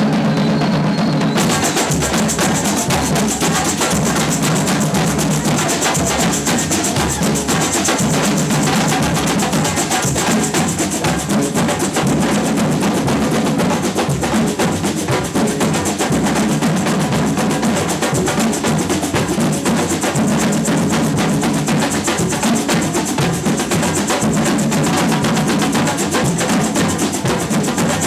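Samba percussion band playing a loud, steady batucada groove: bass drums and snare drums beating a fast, even rhythm.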